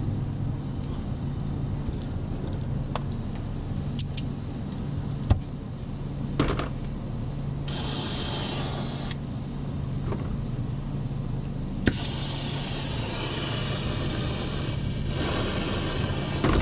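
Steady low hum with a few sharp metallic clicks; a short hiss of gas about eight seconds in, and from about twelve seconds, after a click, a steady gas hiss.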